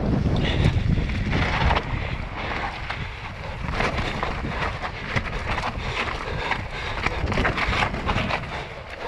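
Wind buffeting an action camera's microphone during a fast mountain bike descent, with tyres rolling over dirt and dry leaves. The bike rattles and clatters over bumps, with quick sharp knocks through most of the run; the wind rumble is heaviest in the first couple of seconds.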